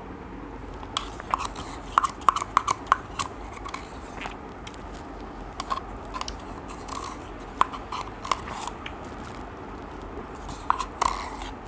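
Close-miked yogurt eating: wet mouth clicks and smacks in irregular clusters, with a wooden spoon scraping inside a plastic yogurt cup.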